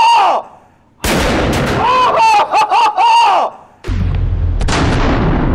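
.50-calibre Desert Eagle pistol fired on an indoor range: a sudden shot about a second in and another deep, echoing boom near four seconds in. Between the shots a man yells and whoops excitedly.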